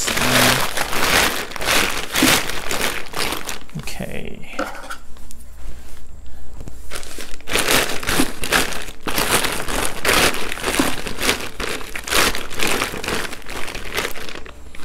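Plastic potato grow sack crinkling and rustling as it is unfolded and opened out by hand, with a quieter lull about four to seven seconds in.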